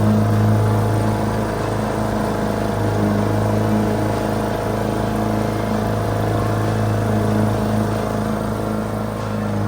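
Lawn mower engine running steadily under load with an even, unchanging drone.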